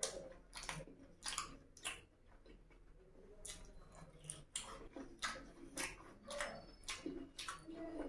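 A person chewing mouthfuls of puri dipped in egg curry close to the microphone: a run of short mouth clicks and smacks, roughly two a second.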